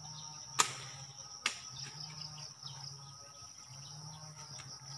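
Insects chirring steadily at a high pitch. Two sharp knocks a little under a second apart sound near the start, the first the louder.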